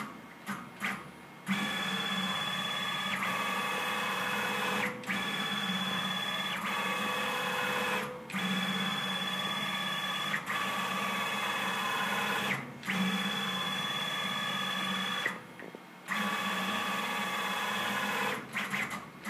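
Z-axis drive motor of a CNC-converted Grizzly G0704 milling machine moving the head along the column: a steady whine made of several tones, in five runs of about three to four seconds with brief pauses between them. The pitch shifts partway through some of the runs.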